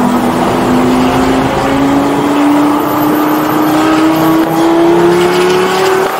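Straight-piped 5.0 V10 of a 2004 Lamborghini Gallardo pulling steadily under load, its note rising slowly and evenly as the revs climb through the gear, then easing off at the very end.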